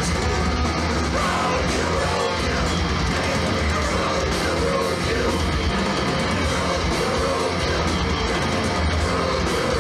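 Death metal band playing live: distorted electric guitar and drums, with yelled vocals.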